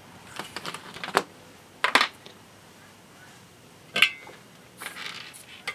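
Tools and parts being handled on a wooden workbench: a few light clicks and knocks, with one sharper metallic clink about four seconds in that rings briefly.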